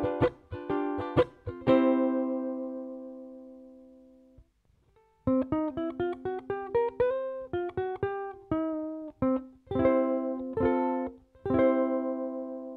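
Electro-acoustic ukulele played through a bass amp with a clean signal and no effects, heard only through the amp's microphone. A quick run of strummed chords rings out and fades away. After a short pause, a second phrase of chords ends on a chord left to ring.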